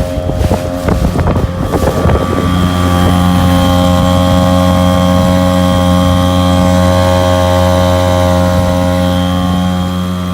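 Mariner 3.3 hp two-stroke outboard motor running steadily under way, a constant even hum. Irregular knocks and bursts of noise over the first two seconds or so, then only the motor.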